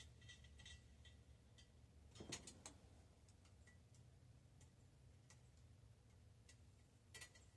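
Near silence broken by faint, irregular clicks and light taps from handling bicycle parts, with a small cluster of clicks about two seconds in and another near the end.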